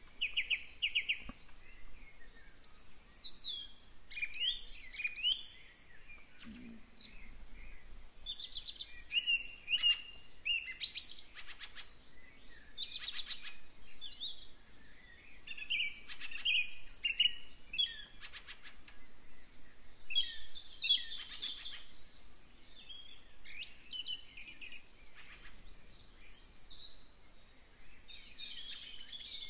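Several small songbirds singing and calling at once: overlapping high chirps, whistles and trills, with no break throughout.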